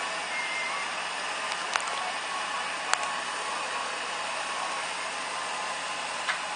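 Steam locomotive No. 461 standing and hissing steam steadily, with a few sharp clicks.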